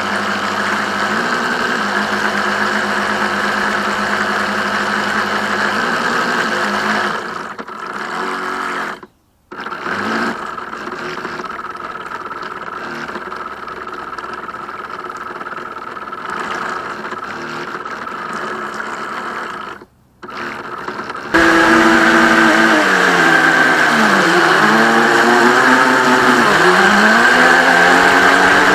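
Reely Wavebreaker RC boat's motor running steadily, recorded from on board. It drops out briefly twice. About two-thirds of the way in it gets louder, its pitch rising and falling repeatedly with the throttle.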